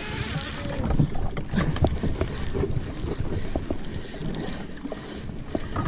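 Wind buffeting the microphone and water slapping against a small boat's hull, with many small clicks and knocks as a conventional fishing reel is cranked.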